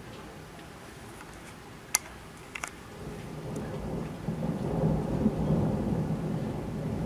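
Thunder rumbling over steady rain. The rumble builds from about three seconds in and is loudest a couple of seconds later. A few sharp ticks come shortly before it.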